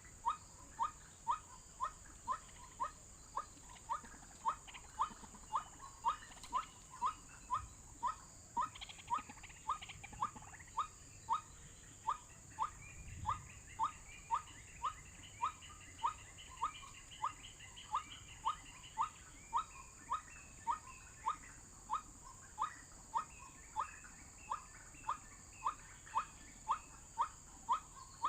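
White-breasted waterhen call, the lure call, a short sharp note repeated evenly about twice a second without a break. Fainter chattering calls sit higher up through the middle, over a steady high hiss.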